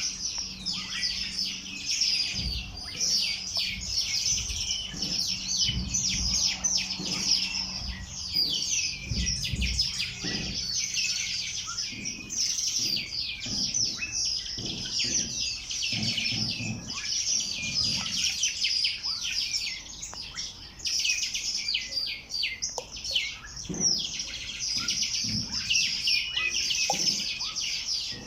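A chorus of many small birds chirping and twittering at once in a dense, unbroken tangle of rapid high calls.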